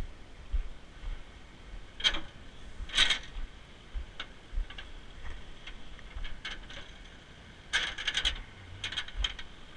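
Light metal clinks and jingles, like chain links or loose hardware knocking together, in short clusters: about two seconds in, a louder jangle at three seconds, and a rapid run near eight seconds. Dull low bumps run under them.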